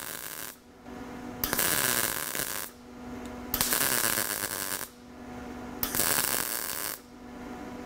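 MIG welder arc crackling and sizzling on sheet metal in bursts of about a second, with pauses about as long between them and a low steady hum in the pauses, as a lap-weld bead is pushed. This is the sound of a steady, well-controlled bead.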